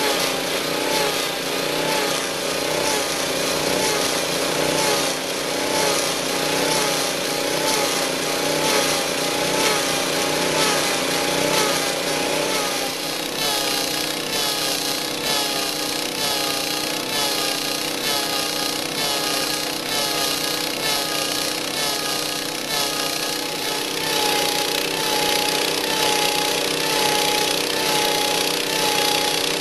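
Beaver log peeler running, its small engine driving the cutter head as it shaves bark and wood from a log. The engine note wavers about once a second over a steady rasp of cutting.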